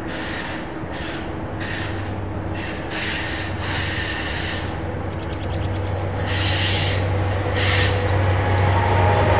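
NJ Transit ALP-45DP dual-mode locomotive running on its diesel engines as it approaches on a curve. A steady low engine drone grows louder throughout, with short repeated bursts of high wheel-and-rail noise.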